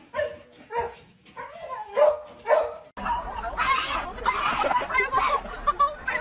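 Small dog barking repeatedly, about two barks a second. About three seconds in it cuts off abruptly and gives way to a denser, noisier sound with voices.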